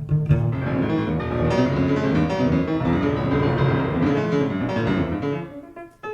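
Jazz piano and double bass duo playing live: the piano comes in about half a second in with a dense flurry of notes over the bass, then thins to sparser notes near the end.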